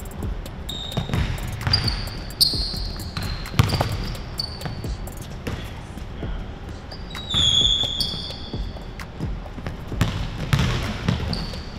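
A basketball dribbled on a hardwood gym floor in one-on-one play, with repeated sharp bounces. Sneakers squeak briefly on the court several times, the loudest squeak about seven seconds in.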